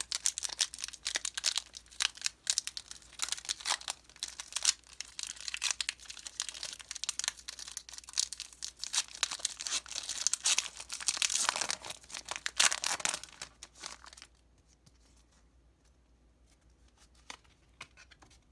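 Pokémon booster pack wrappers being torn open and crinkled, a dense irregular crackle for about fourteen seconds, loudest near the end of it. Then near silence with a few faint clicks.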